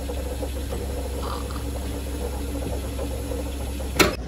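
Automatic coffee machine dispensing a milky coffee into a cup, its pump making a steady hum. A single sharp click comes about four seconds in.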